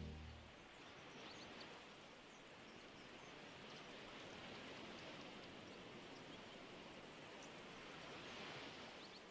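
The last music notes die away in the first half second, leaving a faint, even rain-like hiss with scattered tiny ticks. The hiss cuts off abruptly near the end.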